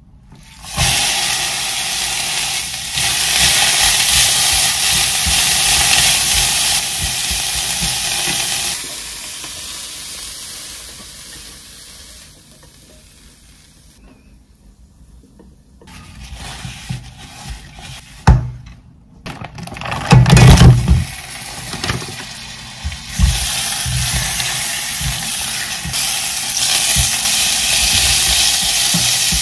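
Shredded cabbage sizzling loudly as it is stir-fried in a nonstick frying pan, the sizzle starting about a second in and fading away by about halfway. Chopsticks clatter and the pan knocks a few times as the cabbage is tipped onto a plate. Then sliced pork sizzles steadily in the pan.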